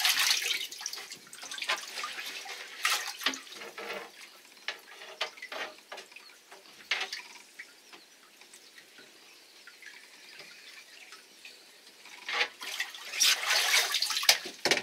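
Water splashing and sloshing in a boat's live well as a fish is chased and scooped up with a landing net, with the loudest splashing and streaming of water as the net is lifted out near the end.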